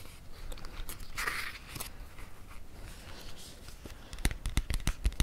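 Close-miked ASMR handling sounds: soft swishing strokes, then, about four seconds in, a quick, uneven run of light taps.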